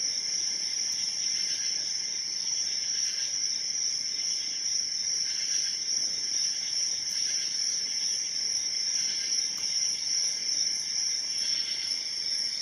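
Steady high-pitched chirring like a cricket chorus, with a few faint clicks from a hook pick working the pins of an Abus 72/40 padlock.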